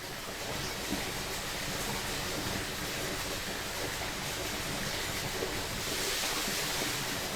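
Steady rushing of a small jungle creek, swelling slightly about six seconds in.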